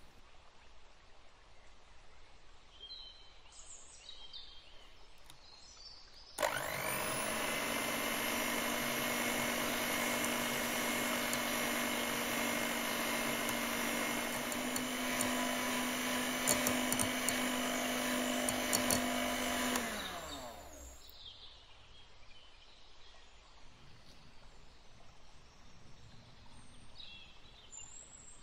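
Electric hand mixer whisking whipping cream in a glass bowl: the motor starts about six seconds in, steps up in speed about halfway through as the cream thickens, then winds down with a falling pitch.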